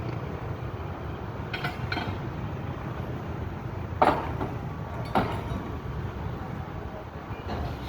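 Excavator engine running steadily while its bucket knocks on the top of a concrete sheet pile to drive it down: two sharp knocks about a second apart in the middle, with fainter clinks before and after.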